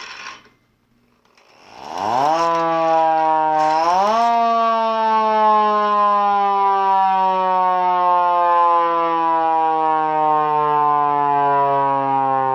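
Vixen Horns VXS-2000MTP hand-crank siren growling: it winds up in two rising pushes, about two and four seconds in, then its low tone slowly falls as the rotor spins down.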